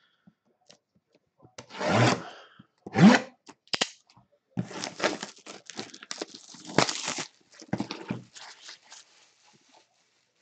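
Sealed cardboard box being opened by hand, its seals and packaging torn and rubbed in short ripping bursts, busiest from about four and a half to eight and a half seconds in.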